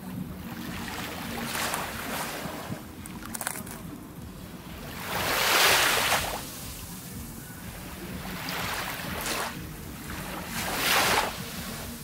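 Small waves breaking and washing up a sandy beach on a calm sea, each one a rush of surf that swells and fades. The largest breaks about halfway through and another near the end, with softer wash between.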